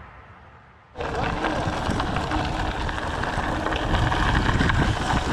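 The tail of background music fades out, then about a second in the live sound cuts in: steady wind buffeting on the microphone with rattling and tyre noise from a mountain bike rolling along a trail.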